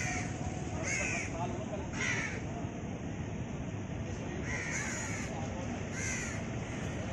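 A crow cawing five times, about once a second with a longer pause midway, over a steady background of outdoor noise.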